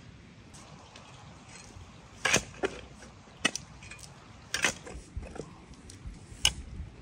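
Metal spade digging into grassy soil: about half a dozen sharp, unevenly spaced strikes and scrapes as the blade bites into the ground.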